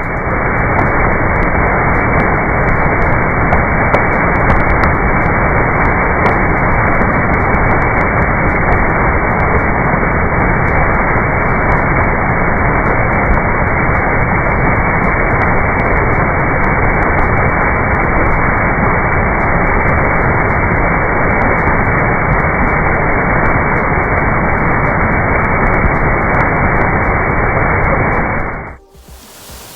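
A loud, steady rushing noise that cuts off suddenly near the end, with faint ticks and short chirps behind it.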